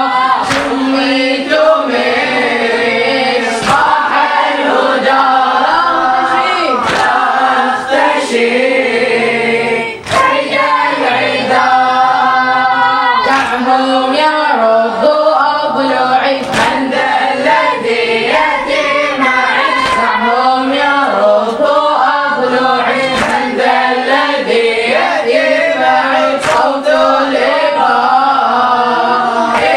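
A group of boys chanting a Shia mourning lament (latmiya) in chorus, without instruments. Sharp collective chest-beating strikes keep time roughly every three seconds.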